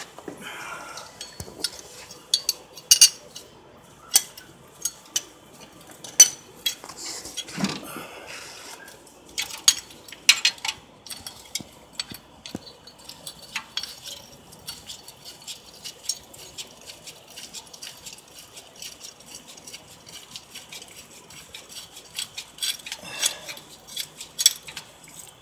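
Metal hand tools clinking and clicking against the engine block while the new crankshaft position sensor is fitted: irregular sharp clinks for about ten seconds, then a long run of quick light clicks.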